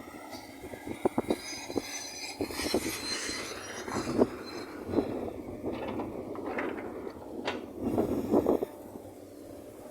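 SANY SY215C crawler excavator at work: irregular metallic clanks and knocks of steel parts, with a high squeal of metal on metal about two seconds in.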